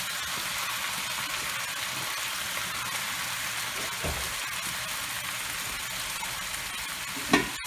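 T-bone steaks in flour coating sizzling steadily in a deep pan, with a soft thump about halfway through and a louder knock near the end.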